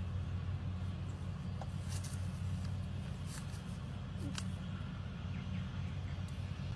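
Steady low outdoor rumble, with a few faint clicks.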